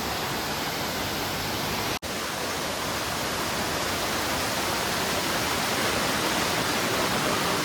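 Amboli waterfall rushing: a steady roar of falling water, broken once by a very short gap about two seconds in.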